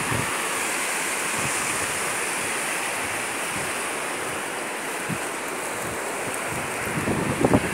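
Rain-swollen river rushing over rocks: a steady hiss of running water, with a few low thumps near the end.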